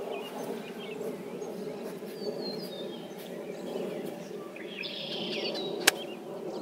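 Birds chirping over a steady background hum, then a single sharp crack near the end: a golf club striking the ball on a punch shot.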